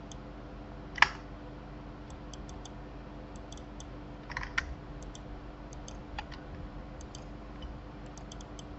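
Computer keyboard and mouse clicks: one sharp click about a second in, a short cluster of clicks around four and a half seconds and a lighter one after six, with faint quick ticks and a steady low hum underneath.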